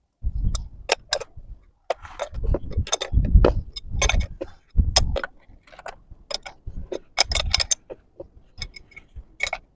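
Irregular metal clicks and clinks with dull knocks, from a butterfly valve and its flange fittings being handled.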